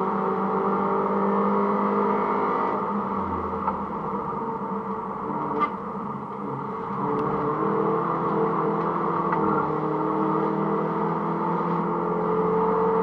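Mini Cooper S (R53) supercharged 1.6-litre four-cylinder engine working hard on track. The revs ease off around the middle with a brief knock, then climb steadily again through the second half.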